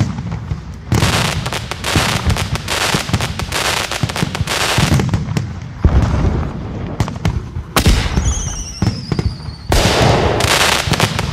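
Fireworks bursting and crackling in quick succession. About eight seconds in, a whistling rocket gives a falling whistle lasting over a second, and a large burst follows just before the end.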